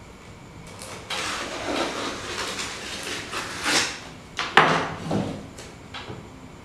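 A long cardboard shipping box being opened by hand: packing tape and cardboard tearing, rustling and scraping. The loudest moment is a sharp rip about four and a half seconds in.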